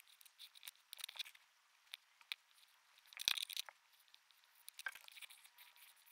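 Pencil scratching on paper in short, irregular strokes, with a few sharp ticks and a louder flurry of strokes about three seconds in.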